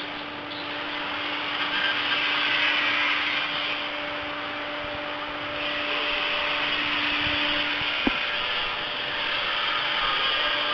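Steady rasping hiss of a workshop power tool running. A low steady hum under it stops with a click about eight seconds in.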